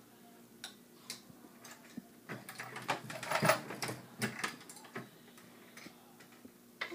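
Metal clicks and clatter from an ammunition reloading press being worked by hand. The clacks are densest from about two and a half to four and a half seconds in.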